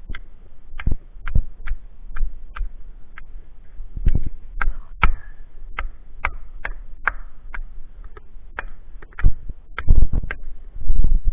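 Hatchet chopping at branch stubs on a conifer trunk: a string of sharp chops, roughly two a second, with heavier, deeper thumps near the end.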